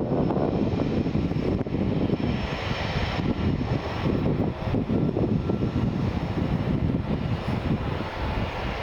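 Boeing 777's GE90 jet engines running: a steady rumble with a faint high whine above it.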